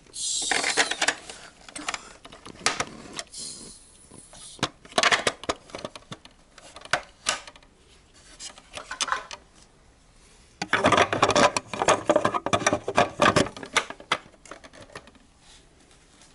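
Small objects being handled close by: a run of sharp clicks and knocks with rustling, and a longer, busier stretch of clattering and rustling from about eleven to thirteen seconds.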